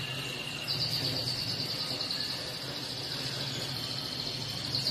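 An insect trilling: one high, steady, fast-pulsing trill that starts about two-thirds of a second in, after a slightly lower trill stops. A faint low hum runs underneath.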